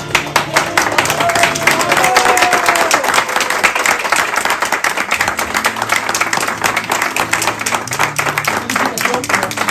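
A small crowd of guests applauding, breaking out suddenly into steady clapping, with music playing underneath.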